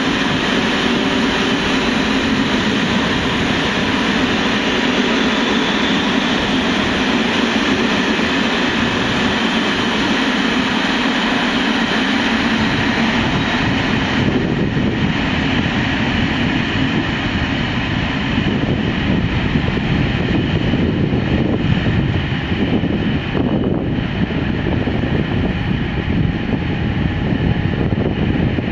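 Slovak Railways Class 750 diesel locomotive pulling away with a passenger train, its engine working steadily along with the coaches running over the rails. About halfway through, the higher sounds thin out as the train draws away, leaving a lower rumble.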